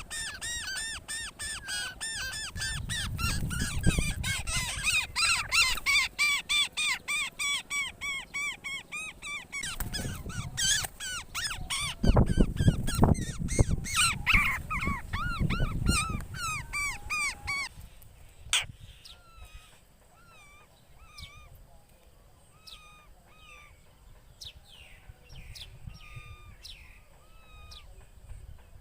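European rollers calling: a rapid, even series of short repeated notes, about four a second, with low rumbling on the microphone at times. After about 18 s it drops to quieter, scattered short calls and clicks.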